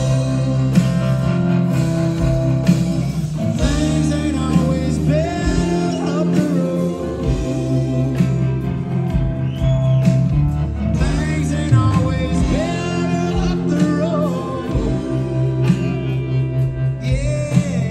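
Southern rock band playing live: electric guitars, bass and drums, with sung vocals over the top.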